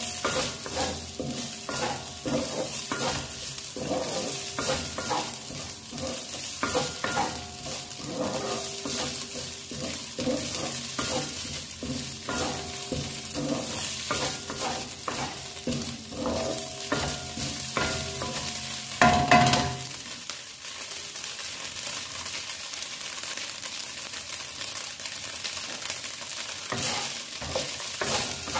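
Diced carrots, minced pork and meatloaf sizzling in oil in a honeycomb-textured frying pan while a wooden spatula stirs and scrapes them against the pan. There is a steady frying hiss under repeated scrapes and knocks. The loudest scrape comes about two-thirds through, and the stirring is sparser after it.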